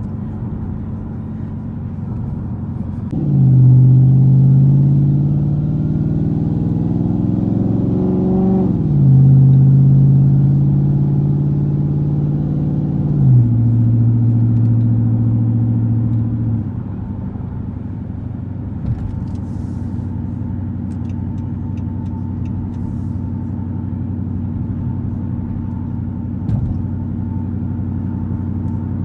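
Straight-piped 5.7L Hemi V8 of a 2013 Chrysler 300C (gutted cats, no resonators or mufflers), heard from inside the cabin. About three seconds in, the exhaust note gets louder and climbs in pitch as the car accelerates, dropping back at two upshifts. After about sixteen seconds it settles to a steady cruising drone.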